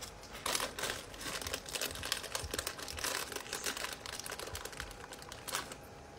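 Irregular crackling and rustling close to a phone microphone, dense small clicks throughout with a slightly louder one near the end: handling noise as hands and a phone move against the recording phone.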